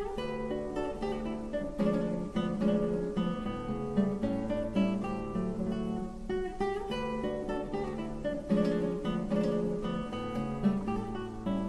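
Classical guitar played solo: quick runs of plucked notes, with loud struck chords about every two seconds.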